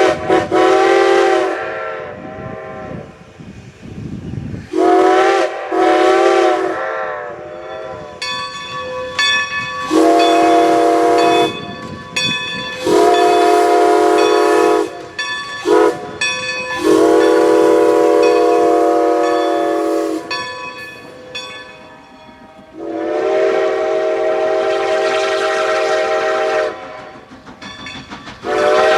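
Reading six-chime steam whistle blown in a series of blasts: short toots and long held chords of several notes, the longest about three to four seconds.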